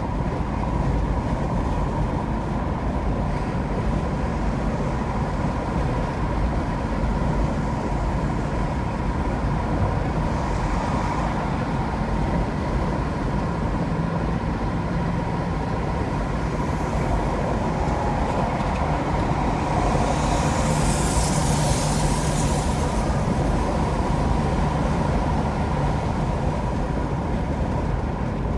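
Highway driving noise from a moving car: a steady low rumble of tyres and engine on the road. A louder high hiss rises for a couple of seconds about twenty seconds in.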